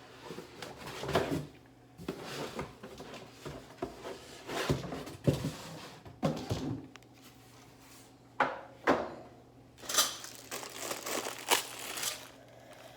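Irregular knocks, clacks and rustling as the parts of a storage stand are handled and fitted together during assembly.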